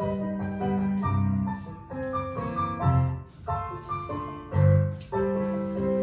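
Jazz piano music for ballet class, chords struck in a steady rhythm about once a second.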